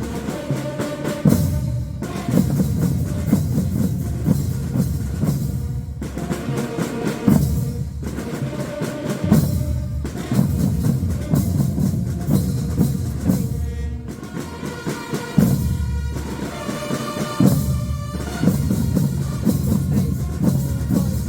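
Fanfare marching band playing: bass and snare drums beating under a pitched horn melody, the music breaking off briefly every few seconds between phrases.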